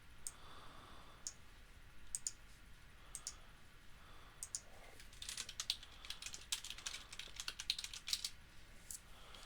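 Computer keyboard keys clicking, faint: a few separate keystrokes, then a quick run of typing from about five seconds in.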